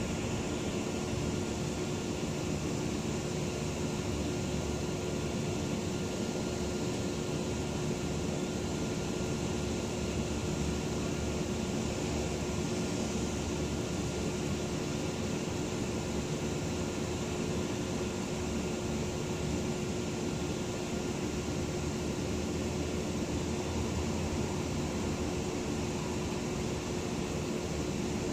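Steady ambient hum and hiss with a constant low tone and a fainter higher one, unchanging throughout with no distinct events.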